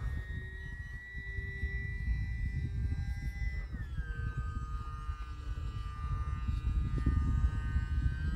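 Electric motor and propeller of the E-flite UMX Timber X RC plane whining overhead: a steady high whine that drops in pitch about three and a half seconds in and then holds lower. A low rumble of wind on the microphone sits under it.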